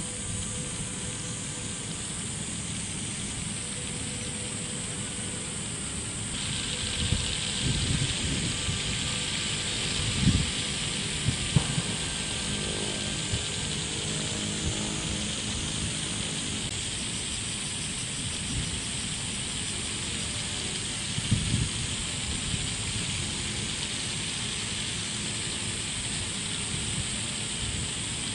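A field of many plastic pinwheels spinning in the wind, a steady whirring hiss that gets louder about six seconds in. Wind gusts buffet the microphone a few times, as low thumps.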